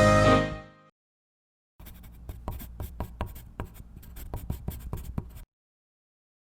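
Quick scratchy pen strokes on a surface, about three a second, starting about two seconds in and stopping about a second before the end, after a music intro fades out in the first second.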